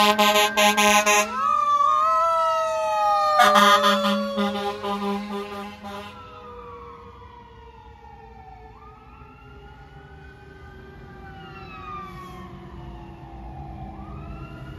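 Fire engine's air horns blasting in pulses over a wailing siren, with a second horn blast about three and a half seconds in. After about six seconds the horns stop and the siren grows fainter, its wail rising and falling more quietly as the truck pulls away.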